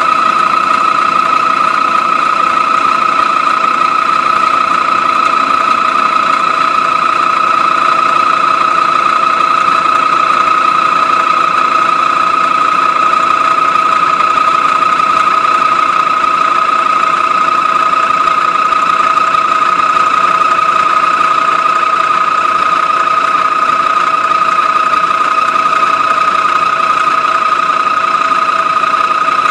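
Face mill on a rectangular milling machine cutting a metal base frame: a loud, steady high-pitched whine with a few fainter overtones over a hiss of cutting noise.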